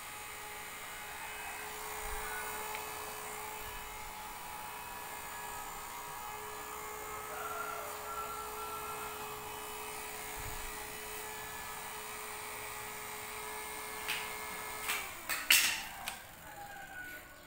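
Small DC cooling fan in a homemade mosquito trap running steadily with a hum, drawing air down into a cloth bag. About fifteen seconds in its pitch falls as it winds down, among a few sharp plastic knocks and rattles as the trap's funnel lid is handled.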